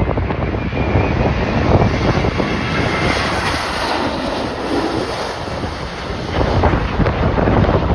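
Storm-force wind gusting across the microphone, a rough, buffeting rumble under a steady rushing hiss that eases slightly and then picks up again near the end.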